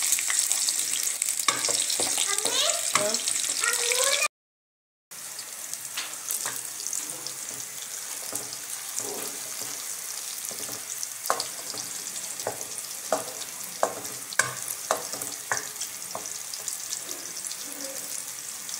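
Sliced onions frying in hot oil in an aluminium karahi, sizzling, while a wooden spoon stirs them and knocks and scrapes against the pan. The sizzle is loudest for the first few seconds, cuts out briefly about four seconds in, then goes on quieter with scattered spoon taps.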